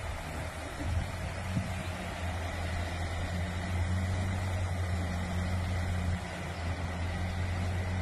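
Scania truck's diesel engine running steadily at low revs as the truck reverses, spreading crushed stone from its raised tipper trailer. A steady rushing noise runs underneath.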